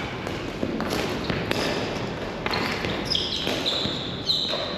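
Ball hockey play: sticks knocking the ball and the floor in scattered sharp clacks, with sneakers squeaking on the playing surface several times in the second half.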